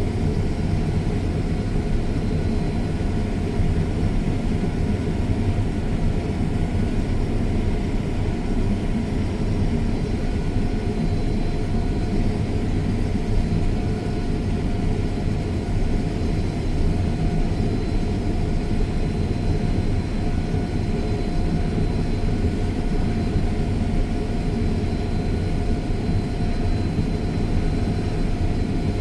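Large farm machine's engine running steadily, a constant low rumble with a faint steady whine above it.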